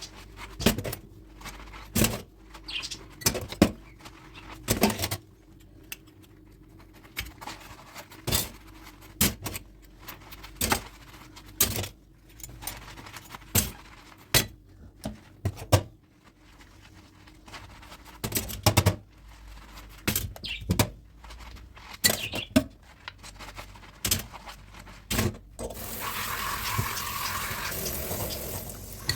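Dishes and cutlery clinking and knocking against each other in the sink, in sharp, irregular strikes. A tap starts running steadily near the end.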